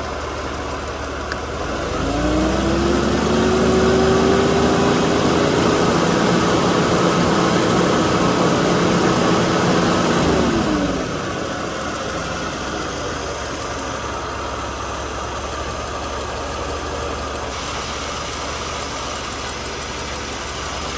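1992 Mercedes-Benz 300E (W124) engine, warmed up, idling, then revved by hand at the throttle about two seconds in. It is held at a raised, steady speed for about eight seconds, then drops back to idle, while its fuel mixture duty cycle is being checked after it ran rich.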